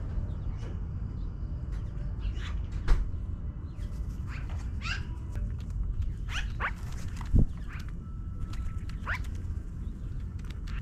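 Magpies calling from a tree: many short calls scattered through, over a steady low rumble, with two dull thumps about three and seven seconds in.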